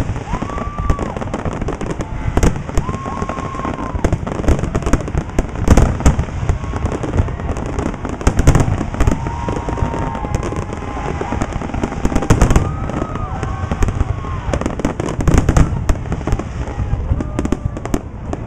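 Fireworks display: a rapid, irregular run of booms and crackling bursts over a continuous low rumble, with people's voices heard in between.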